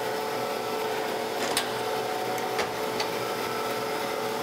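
Surface grinder running with the wheel spinning clear of the work while the table traverses: a steady, even hum with a few sharp clicks.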